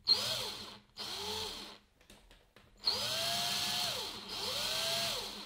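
Cordless drill run in four short bursts, its motor whine rising each time the trigger is squeezed and falling away as it is released. The drill is spinning a length of single-strand hookup wire clamped in its chuck to untwist it.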